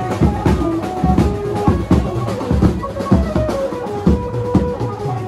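Loud festival procession music played through horn loudspeakers: a heavy, fast drum beat under a held, partly sliding melody line.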